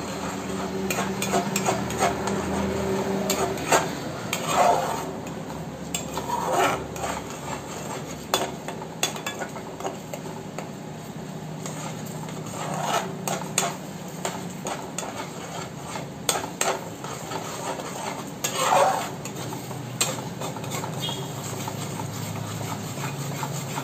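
A metal spatula stirring a thick cashew paste gravy in a metal kadai, scraping the bottom and clinking against the pan in irregular strokes to keep the paste from sticking.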